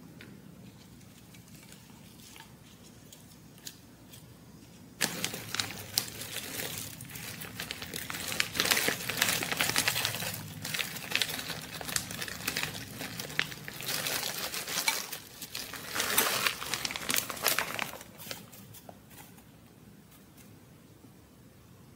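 A plastic bag of shredded cheese crinkling as it is handled and shaken out over a bowl. The crinkling starts suddenly about five seconds in and dies down a few seconds before the end.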